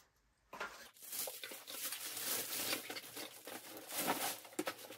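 Clear plastic bag crinkling and rustling as it is pulled off a printer. It starts about half a second in, after a brief near-silence, and goes on with many sharp crackles.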